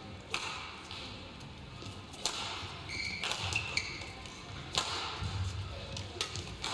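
Badminton rally: sharp racket strokes on a shuttlecock every one to two seconds, with players' shoes squeaking briefly on the court floor a little past halfway and steady footfalls.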